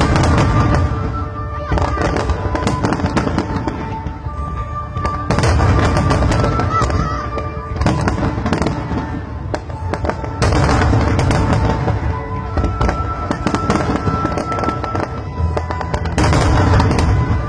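Aerial fireworks display: a dense, continuous run of bangs and crackling that swells into louder clusters every few seconds. Music with long held notes plays alongside.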